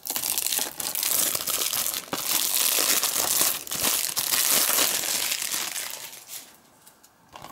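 Plastic shrink-wrap crinkling and crackling as it is peeled off a Blu-ray case, stopping about six seconds in.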